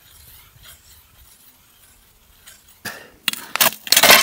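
Steel blades of a hand-cranked ice auger scraping and grinding in a hole through lake ice, faint at first, then loud rasping strokes from about three seconds in. The bit is grinding on the gritty lake bottom instead of breaking through to water.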